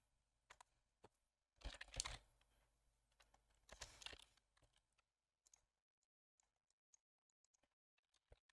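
Faint computer keyboard typing and mouse clicks, in two short bursts about two seconds in and about four seconds in, with a few single clicks in between.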